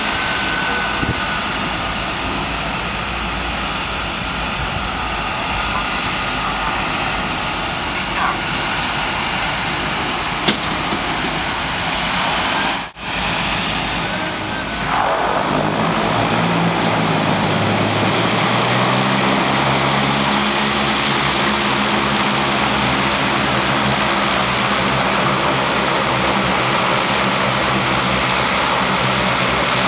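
Twin-turboprop engines of a DHC-6 Twin Otter floatplane running as it taxis on the water: a steady turbine whine with propeller drone. About halfway through the sound drops out briefly, then a deeper propeller drone rises in pitch for a few seconds and holds steady.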